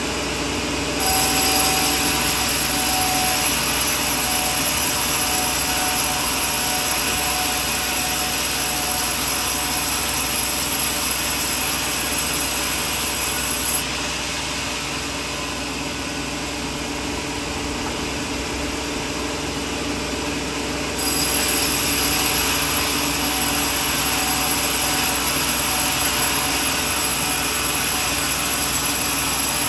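Sawmill blade cutting through coconut wood, a steady loud noise. The cutting begins about a second in and drops away near the middle. The mill runs on more quietly for several seconds before a second cut begins about two-thirds of the way through.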